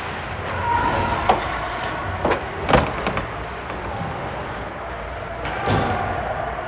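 Ice hockey play on a rink: skates cutting the ice and several sharp knocks of sticks and puck, the loudest nearly three seconds in.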